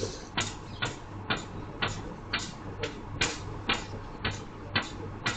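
Repeated banging on a fence, a steady run of sharp knocks at about two blows a second.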